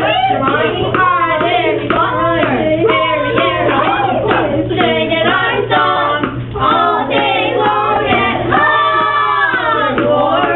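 A group of children singing together, their voices overlapping in chorus.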